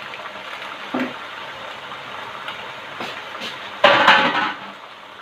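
Steady sizzle of food frying in a pot, with a utensil knocking about a second in and a loud metallic clatter with ringing about four seconds in.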